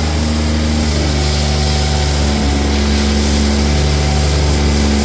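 BMW B58 turbocharged inline-six engine running steadily at a low speed with a slight shift in pitch about two seconds in. It is still misfiring after its fuel-fouled spark plugs were cleaned: the engine is overfueling.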